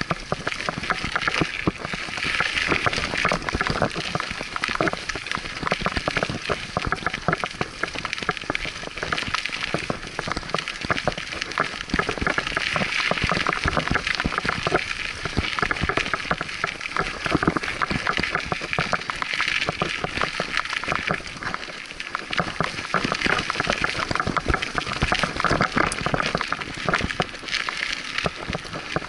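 Scott Aspect 35 hardtail mountain bike ridden fast down a dirt singletrack: tyres crunching over soil, roots and stones with constant rattling of chain and frame. A steady crackling rush full of small clicks, louder in stretches.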